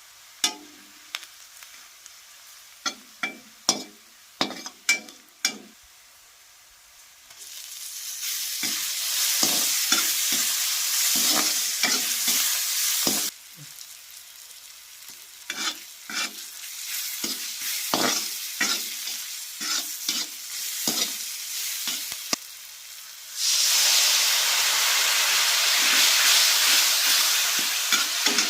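Metal spatula clinking and scraping in a pan, then food sizzling in hot oil as it is stirred. The sizzle drops away for about ten seconds in the middle, leaving just the scraping taps, and comes back loudly near the end.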